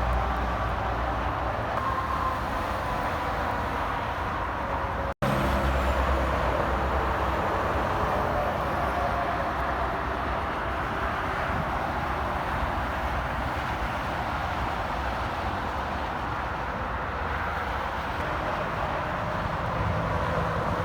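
Steady interstate highway traffic: trucks and cars passing with continuous tyre and engine noise, and a thin whine slowly falling in pitch. The sound cuts out for an instant about five seconds in.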